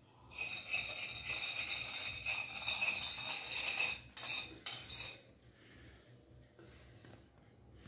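A utensil scraping and tapping against a ceramic plate as cinnamon sugar is worked off it onto fried plantain slices. The scraping is continuous for about five seconds, with a few sharper knocks near the end, then dies away.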